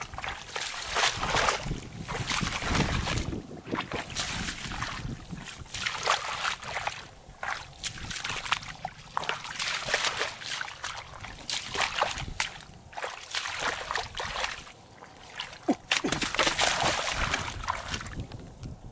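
Irregular squelching and splashing of footsteps through mud and shallow water, then water sloshing as hands work in a muddy pool near the end.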